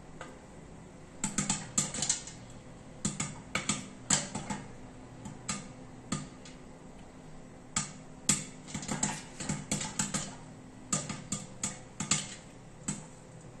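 Popcorn kernels popping in a covered stainless steel pot under a glass lid: sharp, irregular pops, often several in quick succession and then a short gap.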